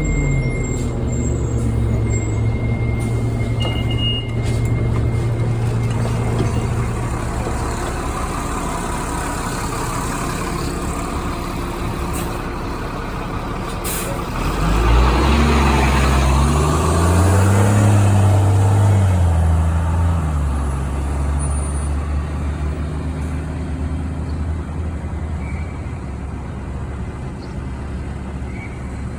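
Orion diesel city bus heard from inside: the engine runs steadily, then revs up as the bus pulls away about halfway through, its pitch climbing for a few seconds before settling back to a steady drone. A single sharp click comes just before it pulls away.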